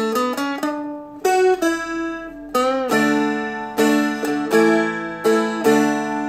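Seagull Merlin, a small four-string dulcimer-style instrument, playing a picked melody over ringing drone strings. The notes climb, one note is bent and released about two and a half seconds in, and regular chord strums follow.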